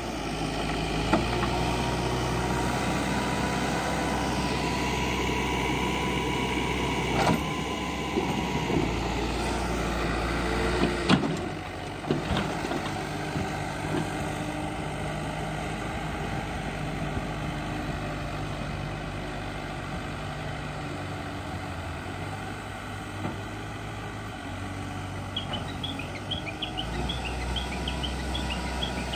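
Manitou TLB 740S backhoe loader's diesel engine running steadily as the machine works, with sharp knocks about seven and eleven seconds in. Birds chirp near the end.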